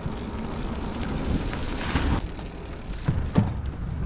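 Wind noise on the microphone and the rumble of a mountain bike rolling along, with two sharp knocks a little after three seconds in.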